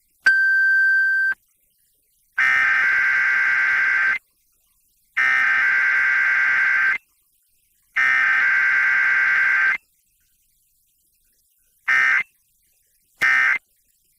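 Emergency Alert System Required Weekly Test on FM radio. A one-second steady beep is followed by three SAME header data bursts, each a harsh buzzing screech of about two seconds. After a pause with no tone or voice message, two short end-of-message bursts sound near the end.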